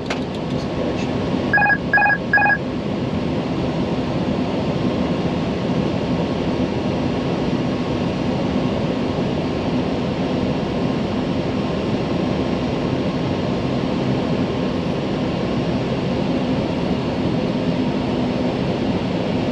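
Steady airflow and engine noise in an Airbus A320neo cockpit on final approach, with three short electronic alert beeps about two seconds in.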